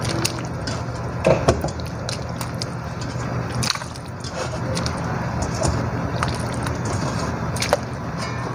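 Pieces of duck meat dropped by hand into a large steel stockpot of hot water, with soft splashes and a few knocks, the sharpest about a second in, near the middle and near the end, over a steady low hum.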